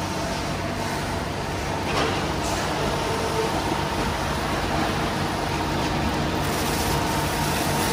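Shrimp-unloading machinery running steadily with a constant mechanical hum and rushing noise, as shrimp and ice drop through it.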